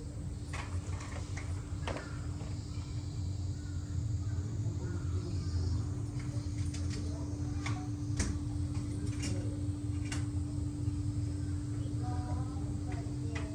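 Steady mechanical hum with a constant low drone, broken by scattered short clicks and a few faint, brief calls or voices.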